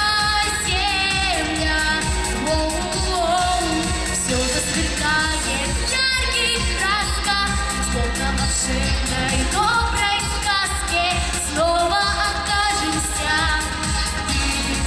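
A girl singing a pop song into a handheld microphone, holding long notes with vibrato over pop accompaniment with a steady low bass line.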